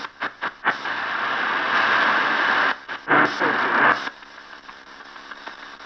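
Shortwave static hiss from the Choyong R1 retro radio's speaker as its tuning dial is swept across the band. The hiss cuts in and out in short gaps, then drops to a much fainter level about four seconds in.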